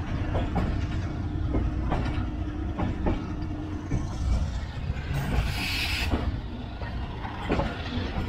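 Passenger train rolling out through a station yard, heard from the carriage doorway: a steady low rumble with irregular clacks of the wheels over rail joints and points, and a brief hiss about five seconds in.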